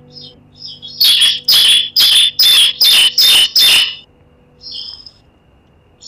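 Bar-winged prinia (ciblek) calling: two soft high notes, then a run of seven loud, sharp notes at about two a second, then one fainter note. Quiet background music hums underneath.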